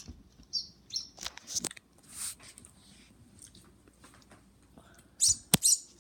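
A small bird making short, high chirps at scattered moments, with a sharp click a little before the end.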